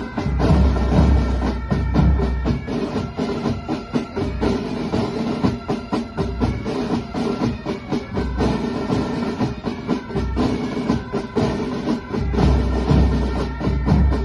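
Military band playing martial music: held notes from the wind instruments over a dense, steady drumbeat, with heavy bass drum strokes about a second in and again near the end.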